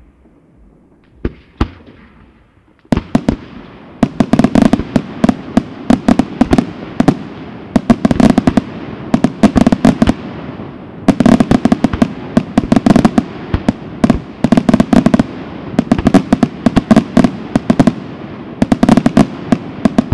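Aerial fireworks shells exploding in a professional display: two lone bangs, then from about three seconds in a dense barrage of rapid bangs and crackles that swells and eases every second or two.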